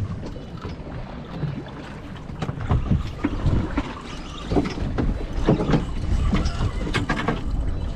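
Wind buffeting the microphone over water sloshing against a small fishing boat. Irregular knocks and clatter come in from about two and a half seconds in.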